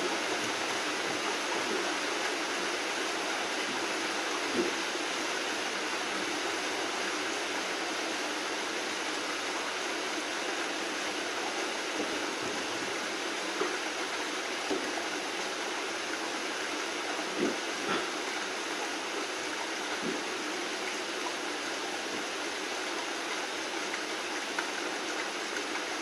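Steady rain falling, an even hiss, with a few sharper drop taps scattered through it.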